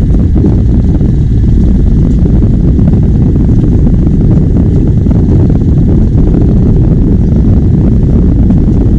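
Boat under way on open water: a loud, steady, rough low rumble of motor and wind noise on the microphone.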